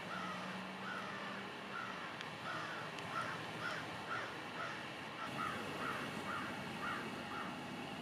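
Crows cawing in a long run of short caws, about two to three a second. A low steady hum sits under the first couple of seconds.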